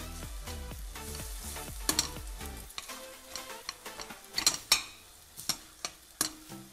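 A steel ladle stirs and scrapes softened tomatoes frying in oil in a stainless-steel kadhai, over a light sizzle. The ladle clicks against the pan several times, most often in the second half.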